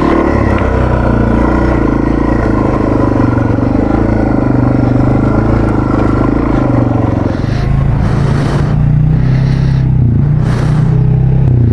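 Yamaha TW200's single-cylinder four-stroke engine running on a dirt trail, its pitch rising and falling with the throttle. About seven and a half seconds in, the engine note settles to a steadier pitch, with two short bursts of hiss.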